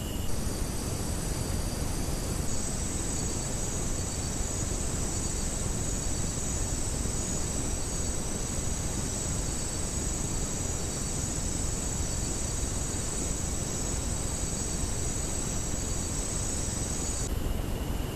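Steady high-pitched chorus of rainforest insects over the constant hiss and low rumble of a trail camera's microphone. The chorus changes about two seconds in and stops about a second before the end.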